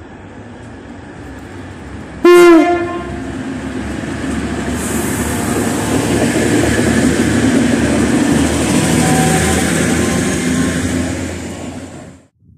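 A diesel multiple unit sounds one short horn blast about two seconds in, then runs past close by. Its running noise builds, with a high hiss over it, and cuts off abruptly near the end.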